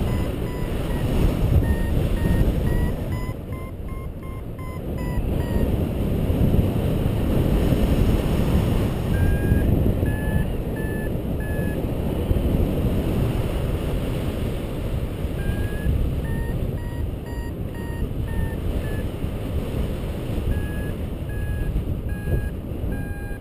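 Paragliding variometer beeping in quick trains of short tones whose pitch drifts up and down, in runs of a few seconds with short pauses between: the climb tone of a glider gaining height in lift. Wind rushes steadily over the microphone underneath.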